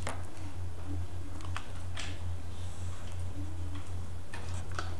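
Felt-tip marker drawing lines on paper: a few short scratchy strokes and light taps of the tip, over a steady low hum.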